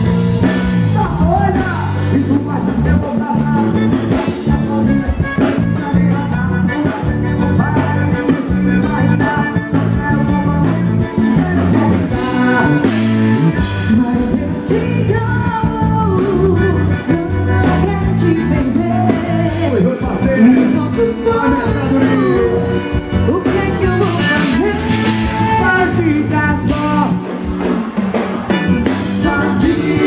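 Live forró band: a woman singing over a piano accordion and band with a steady beat, played loud through a PA system.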